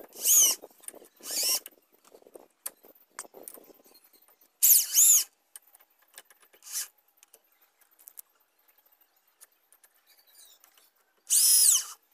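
Cordless power drill run in short trigger pulls, four times. Each time its motor whine rises and falls as it drives a screw through the dish stand into a wall plug. Faint clicks and knocks come between the pulls.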